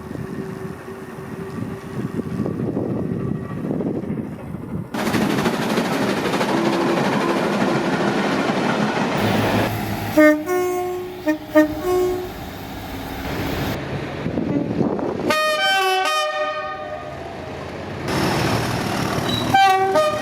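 Train horns sounding in a run of separate clips: a few short toots on two notes about ten seconds in, one longer multi-note blast a few seconds later, and a short toot near the end. Between the horns come the rumble and rail clatter of passing trains.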